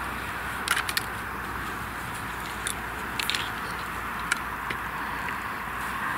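Brocock Sniper air rifle being lifted and set into a tripod's clamp head: a few sharp clicks and knocks in small clusters, over a steady hiss.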